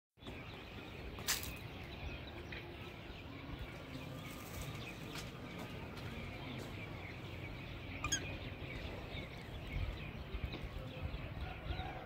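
Many faint bird chirps over a steady low outdoor rumble, with two sharp clicks, one about a second in and one about eight seconds in.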